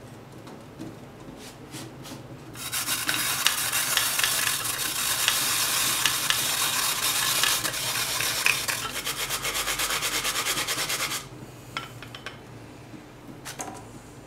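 Daikon radish being grated on a plastic hand grater: quick, rhythmic rasping strokes that start about two and a half seconds in and stop suddenly some eight seconds later.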